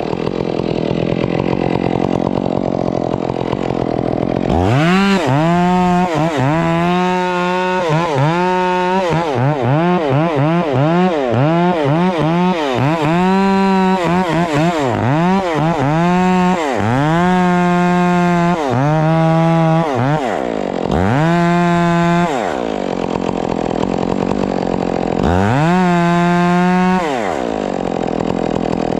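Stihl chainsaw revved repeatedly: a run of quick throttle blips, then several stretches held at high revs for a second or two, dropping back to idle between them.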